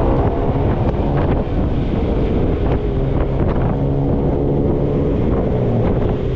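Motorbike engine running under way, its note shifting in pitch, with wind rumbling over the microphone.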